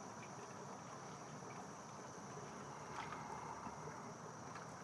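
Faint, steady chorus of insects such as crickets, a high continuous trill, with a few faint ticks.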